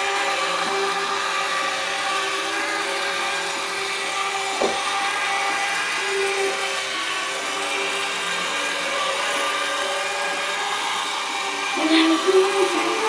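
Small electric motor of a battery-powered Thomas the Tank Engine toy train whirring steadily, with a single click about four and a half seconds in and a brief louder burst near the end.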